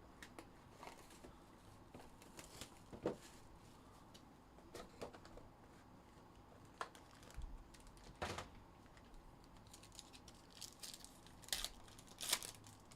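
Faint crinkling and tearing of a card box's wrapper and packs being opened, with scattered light clicks and rustles of cards being handled.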